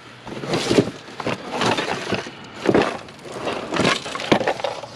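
Household junk being rummaged through in a box by hand: irregular clattering, knocking and rustling of objects being shifted and tossed aside.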